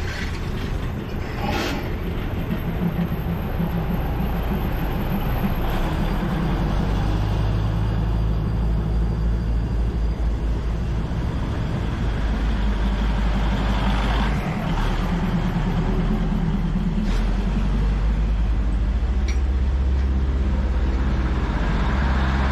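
Diesel train engine running with a low, steady drone as the train passes slowly through the market, its pitch shifting a couple of times, with a few sharp clicks.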